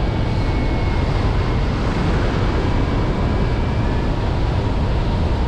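Steady rush of wind over the microphone of a hang glider pilot in gliding flight, with a faint thin steady tone above it.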